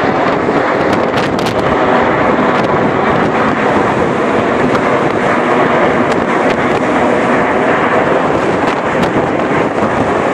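Steady jet roar from the Red Arrows' formation of BAE Hawk T1 jets flying overhead.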